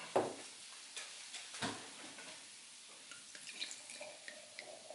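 Wine pouring from a bottle into a stemmed wine glass, faint, from about three seconds in, with light ticks. Two soft knocks, about a second and a half apart, come first.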